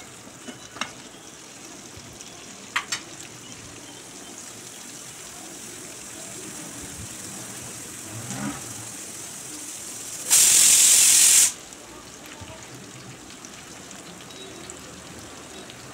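Chopped onions sizzling steadily in hot oil in a frying pan, with a few light spatula clicks in the first three seconds. A little past the middle, a loud burst of hiss lasts about a second and then stops abruptly.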